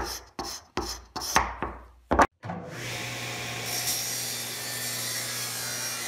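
A hand scraper rasping wax and wood off a redheart block in quick strokes, about two a second. About two and a half seconds in, it gives way to a table saw running and cutting through the block, a steady hiss over a low hum.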